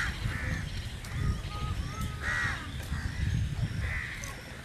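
Crows cawing several times, over a low rumble on the microphone.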